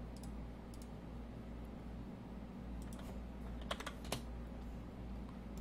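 Keystrokes on a computer keyboard: a few scattered clicks, then a quick cluster of key presses about three to four seconds in, over a low steady hum.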